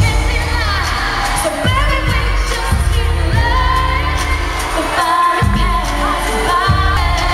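Female pop singer singing live into a microphone over a band's bass-heavy backing in a mid-tempo R&B song, her voice sliding through long melismatic runs.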